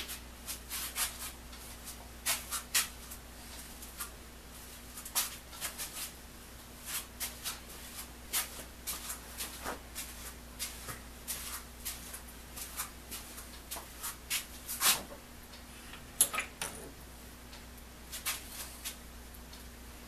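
Irregular light clicks and taps, scattered with no steady rhythm and loudest about fifteen seconds in, over a steady low hum.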